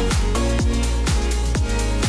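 Electronic background music with a steady kick drum about twice a second over sustained synth tones and bass.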